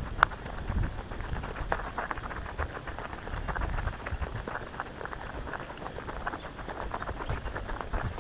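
Footsteps crunching on a dry bush track, a quick irregular patter of small crackles, over a low rumble.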